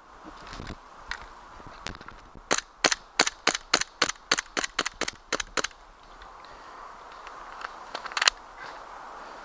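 Gas blowback airsoft gun firing a quick string of about a dozen single shots, roughly three or four a second, starting about two and a half seconds in. A few isolated shots come before it, and one louder shot near the end.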